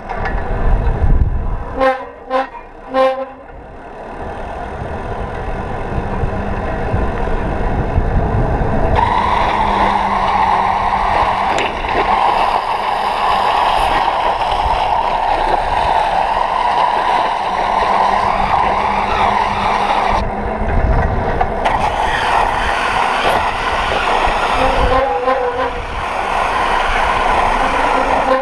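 Wind rushing over the camera's microphone and tyre noise from a custom cruiser bicycle with a knobby tyre coasting down an asphalt road. The rush builds over the first several seconds as the bike gains speed. There are a few short pitched sounds near the start.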